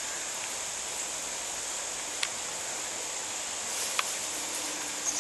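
Steady high-pitched insect buzz with a faint hiss, and a couple of faint clicks about two and four seconds in.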